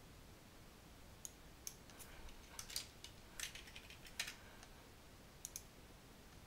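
Faint computer keyboard typing, a scatter of key clicks over about three seconds, then two quick clicks about a second later.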